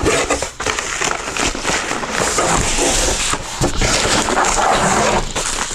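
Handling of packaging: a cardboard shipping box being opened and a white plastic bubble mailer pulled out of it, with continuous crinkling and rustling made up of many short crackles.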